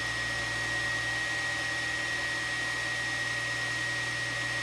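Two Trees SK1 CoreXY 3D printer running its shaper calibration: a steady, even whir like a fan, with a thin high whine on top and a low hum underneath.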